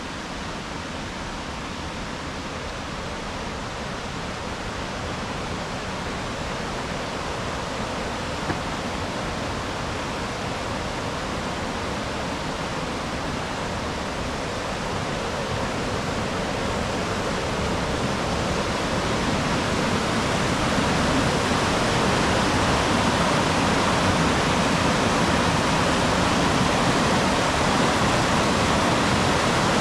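Steady rush of flowing water from a creek or waterfall, growing gradually louder, most of all a little past the middle.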